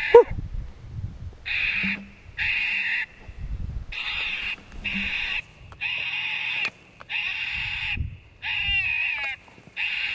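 Lucky Duck Roughneck electronic predator caller playing a prey distress call, repeated harsh cries under a second long, about one a second, used to lure coyotes. A loud sharp sound comes just after the start.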